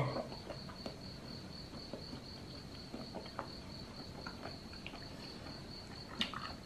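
Steady, evenly pulsing high chirp of a cricket, with faint soft clicks of a man chewing rubbery sea cucumber; one slightly louder click comes about six seconds in.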